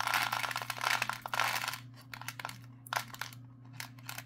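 Small plastic bead packet crinkling and rustling as it is handled: a dense run of crackling for about the first two seconds, then scattered clicks and rustles.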